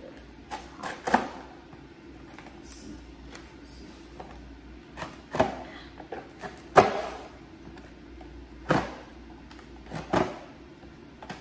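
Scissors cutting into a cardboard box: a series of sharp snips and crunches, several seconds apart, with pauses between them.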